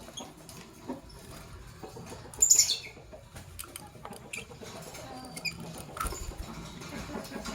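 Lovebirds calling: one loud shrill chirp falling in pitch about two and a half seconds in, a few shorter chirps later, and scattered light clicks and scratches.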